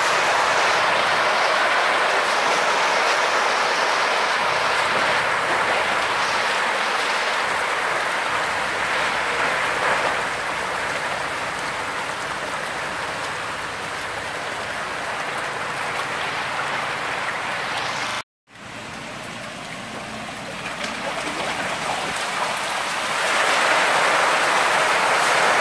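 Dense, continuous splashing of water as a packed tank of African catfish (Clarias) thrash at the surface during feeding, sounding like heavy rain. It cuts out for an instant about two-thirds of the way through, then resumes.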